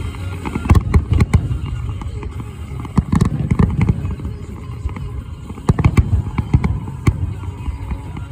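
Fireworks going off: a string of sharp bangs and low booms at irregular intervals, clustered about a second in, around three seconds in and again near six seconds.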